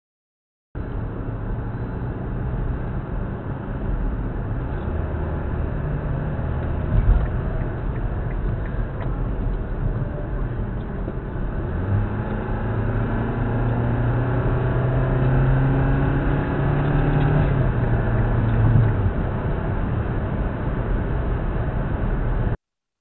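A car's engine and road noise heard from inside the cabin through a dashcam microphone as the car drives onto a highway. A single thump comes about seven seconds in. Through the second half the engine note rises gradually as the car accelerates, then drops a few seconds before the end.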